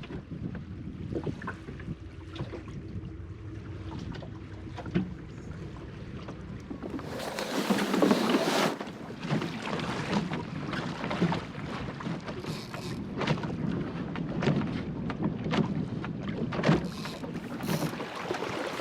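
Wind rumbling on the microphone, then from about seven seconds in a loud stretch of rustling followed by scattered knocks and clicks of gear being handled.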